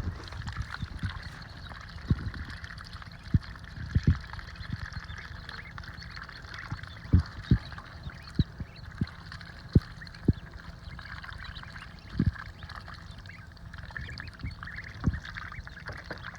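Ducklings splashing and dabbling in the water as they go after thrown mealworms: scattered sharp plops and splashes over a steady background of soft duck calls and water.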